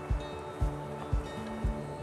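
Background music: sustained notes over a soft low beat about twice a second.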